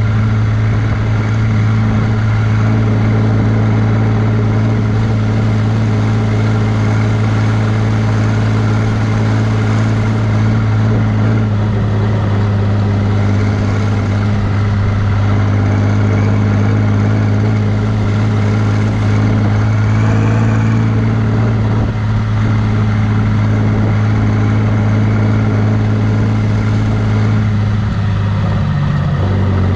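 John Deere 3140 tractor's six-cylinder diesel engine running steadily under load while driving on the road with a loaded trailer, heard close from the bonnet, over a steady hiss of tyre and road noise. Near the end the engine note shifts.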